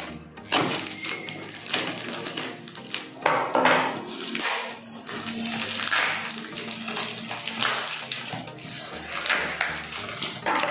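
A taped cardboard parcel being cut and torn open by hand: a run of irregular ripping and crinkling of packing tape and cardboard.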